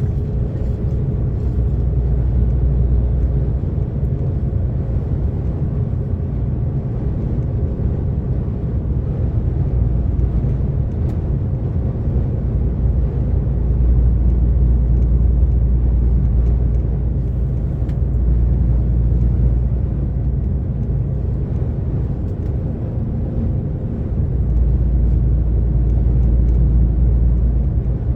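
DAF XF 460 truck driving at motorway speed: a steady low drone of its PACCAR MX-13 six-cylinder diesel engine mixed with tyre and road noise. The deep rumble swells louder for a few seconds at a time, several times.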